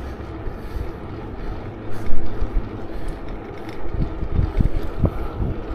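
Wind buffeting the microphone while riding a BMX bike on a street, a steady low rumble with stronger gusts about two seconds in and again around four to five seconds in.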